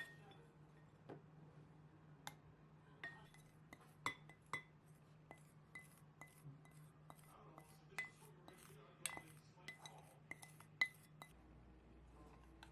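Spoon clinking against a glass: a series of light, ringing clinks, irregular and a little more than one a second, stopping near the end.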